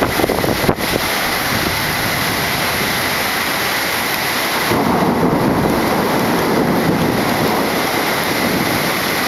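Thunderstorm: heavy rain hissing steadily, with thunder rumbling from about halfway through.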